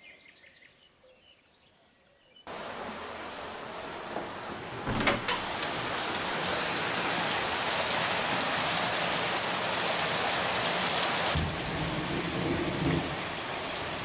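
Heavy rain pouring and splashing onto a concrete courtyard, a loud steady hiss of downpour that starts suddenly about two and a half seconds in after a quiet start.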